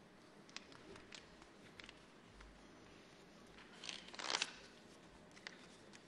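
Faint room tone with a few small clicks and one brief rustling crackle about four seconds in.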